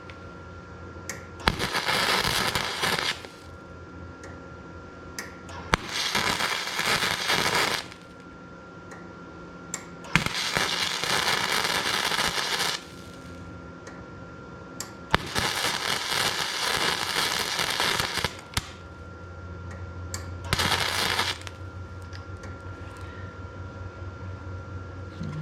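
Electric arc welder laying beads on a door latch: five bursts of crackling arc, each one to three seconds long and the last one brief, with a low hum in the pauses between them.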